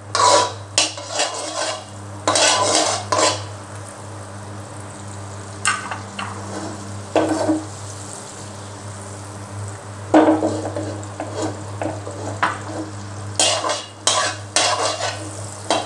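Metal spatula scraping and stirring around a blackened wok as butter melts and sizzles in it, in clusters of strokes with a quieter stretch in the middle. A steady low hum runs underneath.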